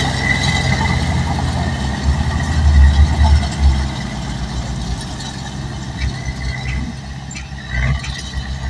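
Bulldozer's diesel engine running under load, with a steady high squeal over roughly the first two seconds. The engine grows louder for a moment about three seconds in.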